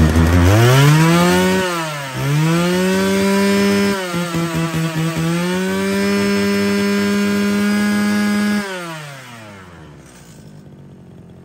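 Kawasaki TG33 two-stroke brushcutter engine revving, its throttle worked by hand: it climbs to a steady high speed three times with short dips between. About nine seconds in it drops off and winds down to a stop.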